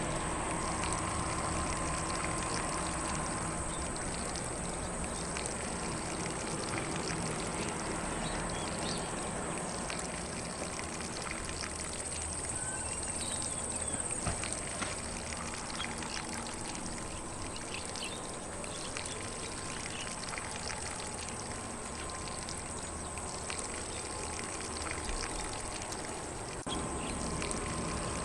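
Lawn sprinkler spraying water over grass: a steady, even spray hiss.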